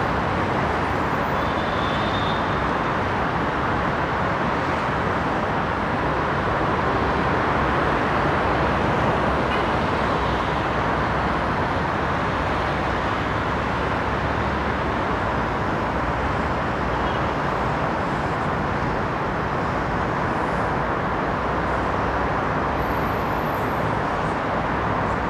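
City road traffic: many cars and buses blending into one steady, even noise, with no single vehicle standing out.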